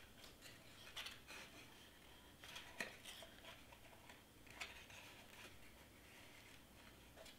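Near silence with faint scattered rustles and light ticks from cardstock pieces being handled and pressed together; the sharpest tick comes about three seconds in.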